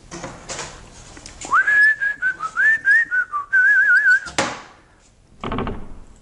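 A person whistling a short tune of a few notes for about two and a half seconds, ending in a quick warble. A sharp knock follows, then a brief scuffing clatter from the outhouse door being handled.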